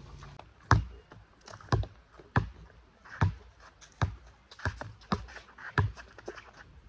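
Basketball being dribbled on an outdoor hard court: about eight sharp bounces at an uneven pace, roughly one every second or less, with fainter clicks between them.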